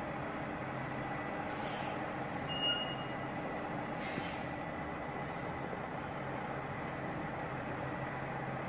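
Diesel semi-truck engine running steadily. Two short hisses of air are heard, and there is a brief high squeak about a third of the way in.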